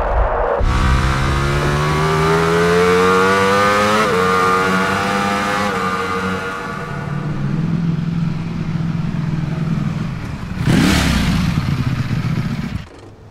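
Ducati Panigale V4 superbike's V4 engine pulling hard, its pitch climbing steadily for a few seconds and then holding steadier. About eleven seconds in comes a short loud burst whose pitch rises and falls quickly, and the sound cuts off near the end.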